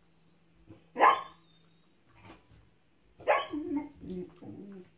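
Puppy barking: one sharp bark about a second in, then another bark a little past three seconds followed by a few shorter, lower vocal sounds.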